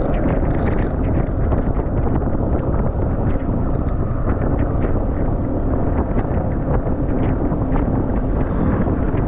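Wind blasting steadily on the microphone of a moving motorbike, with the engine and road noise running underneath.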